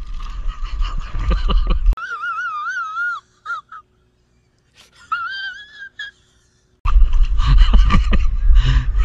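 A man's high, quivering, wheezy whimpering cry in two stretches, dropped in as a meme clip. Before and after it, wind rumble on the microphone of an outdoor action camera.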